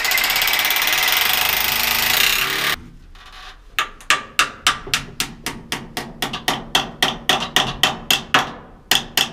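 A power tool runs steadily for nearly three seconds, then a hammer strikes in quick even blows, about four a second, some twenty times.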